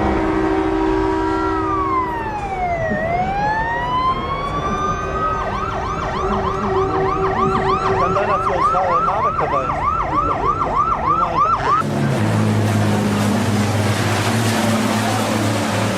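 Electronic emergency-vehicle siren: a slow wail sweeping down and back up, then a fast yelp of about two sweeps a second, which cuts off abruptly about three-quarters of the way through. After the cut, a steady low engine hum with noise.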